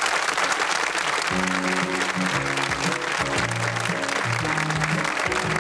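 Studio audience applauding, and about a second in a song's intro starts on piano with steady low bass notes under the continuing applause.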